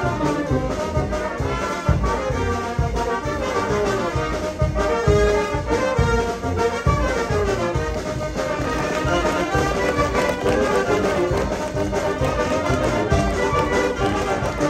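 Brass band playing Oaxacan dance music, sones and chilenas, with trumpets and trombones carrying the melody over a steady low beat.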